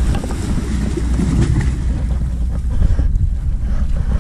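Wind buffeting the camera's microphone as a loud, steady low rumble, with a few faint small knocks over it.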